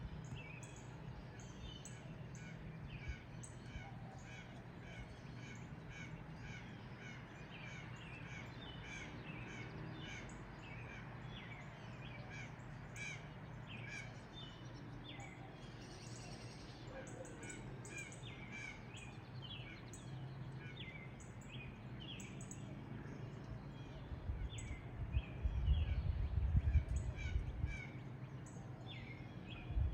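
Morning bird chorus: many short bird calls and chirps repeating throughout over a steady low hum. A few seconds of loud low rumbling come in near the end.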